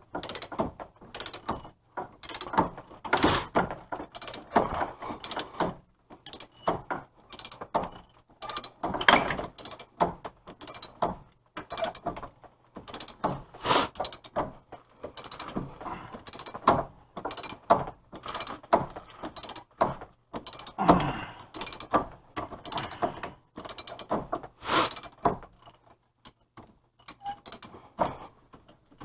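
Ratchet and metal tools clicking and clanking in short, irregular bursts as an axle nut is worked onto damaged axle threads to straighten them.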